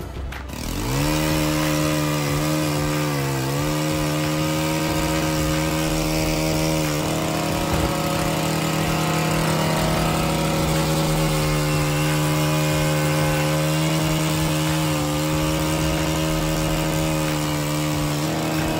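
Chainsaw running at full throttle, cutting tree limbs. It revs up about a second in, dips briefly a couple of seconds later as it bogs in the cut, then holds a steady high pitch with small shifts.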